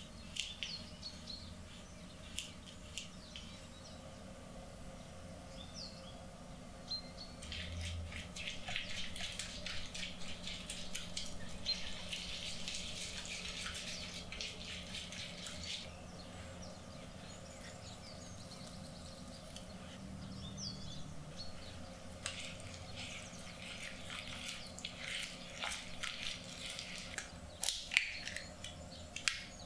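Silicone whisk beating ingredients in a bowl in quick, scratchy strokes, in two long runs. Something is poured into the bowl at the start, and an egg is cracked over the bowl near the end.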